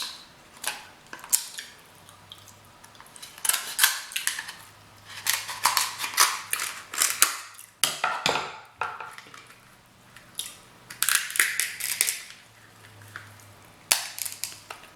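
A king crab leg's hard shell being cut and cracked open, giving irregular sharp snaps and crunches, often in quick clusters.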